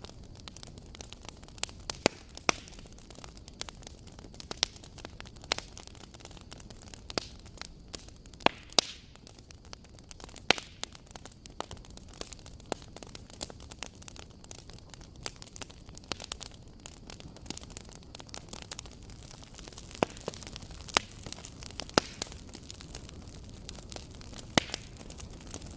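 Campfire crackling: irregular sharp pops and snaps of burning wood, the louder ones every second or two, over a steady low hiss of the flames.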